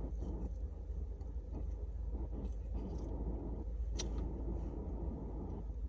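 Steady low rumble inside a parked car, with one sharp click about four seconds in.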